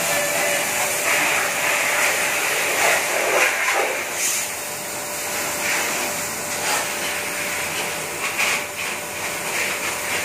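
Oscillating automatic bike wash machine spraying water: a steady hiss of water jets with a steady hum underneath that wavers slightly.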